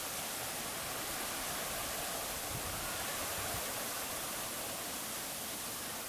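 Steady hiss of falling rain, even and unbroken.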